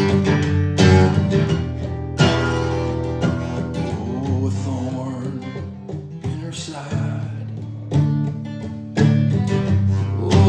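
Acoustic guitar playing an instrumental passage, chords struck afresh every second or two.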